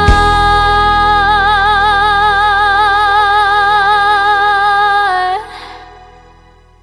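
A woman's singing voice holding one long note with a wide, even vibrato over a low sustained accompaniment, then the note ends about five seconds in and the music fades away.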